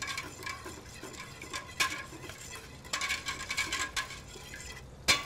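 Wire whisk clinking and scraping against the sides of a stainless steel stock pot while sauce is stirred: irregular metal clicks, coming thicker about three seconds in.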